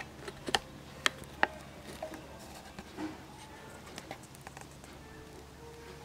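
Irregular sharp ticks and taps over a low steady hum. They come several in the first second and a half, then only now and then.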